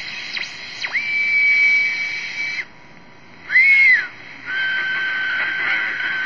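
TenTec Model 1054 regenerative shortwave receiver whistling through its speaker over band hiss as the tuning and regeneration knobs are turned: a tone swoops down into a steady high whistle, drops out briefly, chirps once, then settles into a lower steady whistle about four and a half seconds in. The squeal is the regenerative detector with too much feedback, oscillating against a station's carrier.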